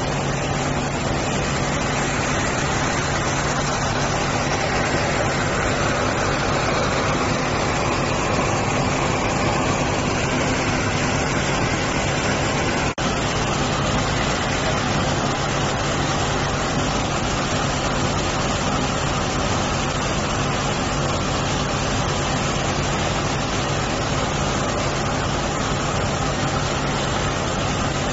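Diesel engine of a portable sand dredger running steadily, a constant low hum under a continuous rushing hiss of sand-and-water slurry. The sound drops out for an instant about halfway through.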